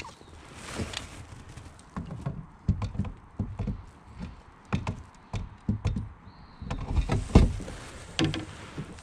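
Irregular knocks and thumps of a landing net and fishing rod bumping against a kayak's hull and gear as they are handled, coming thick and fast from about two seconds in until near the end.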